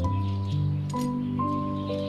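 Background music of soft held chords whose notes change every half second or so, with a few faint sharp clicks over it.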